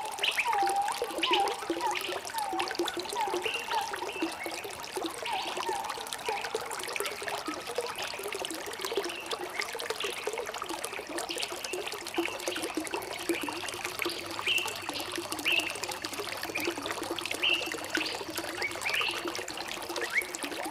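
Water trickling and gurgling in a stream, with birds calling over it. A short call repeats about twice a second for the first seven seconds or so, and higher chirps are scattered throughout.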